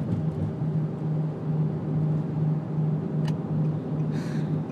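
Car cabin noise: a steady road and engine drone with a low hum that swells and fades about twice a second. There is a single sharp click a little past three seconds in and a short breathy hiss near the end.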